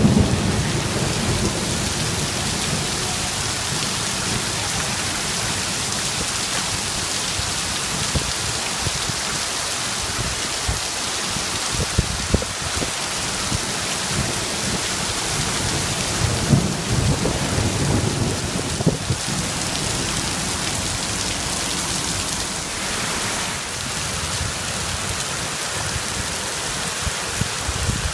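Torrential rain pouring onto a paved street and pavement in a steady, loud hiss. About two-thirds of the way through, low swells rise over it as a car drives through the standing water.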